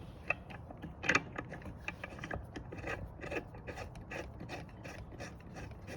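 Ratchet wrench clicking in a quick, uneven run of strokes as a bolt is tightened back up.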